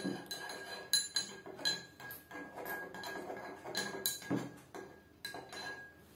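Metal spoon stirring salt into water in a drinking glass, clinking against the glass unevenly, a couple of times a second, as the salt is dissolved.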